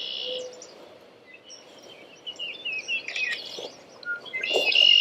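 Wild songbird singing outdoors in short, warbling chirped phrases: one at the start, a longer run about two to three seconds in, and another near the end.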